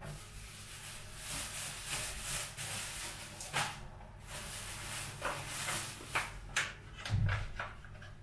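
Kitchen handling noises: a rushing hiss for several seconds, then a few sharp clicks and knocks, with a dull thump about seven seconds in, like a cupboard or drawer being shut.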